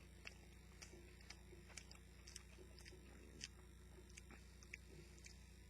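Faint chewing of a mouthful of chicken wrap, with soft, irregular mouth clicks.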